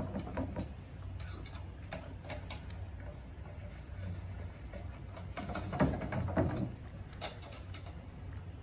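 Scattered light clicks and clinks of rack parts and bolts being handled and snugged with an Allen key during assembly, with two louder knocks about six seconds in. A steady low hum runs underneath.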